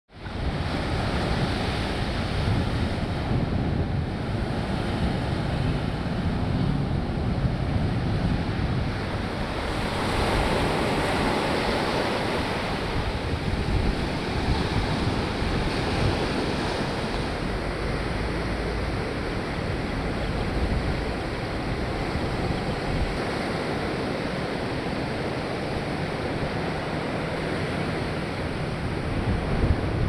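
Ocean surf breaking and washing up onto a sandy beach, with wind: a steady rushing that fades in at the start and swells about ten seconds in.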